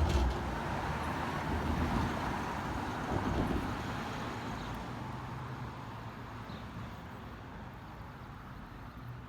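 Amtrak passenger train passing: a steady rumble and rush of the cars on the rails, loudest in the first few seconds and then fading as it moves away. No horn sounds.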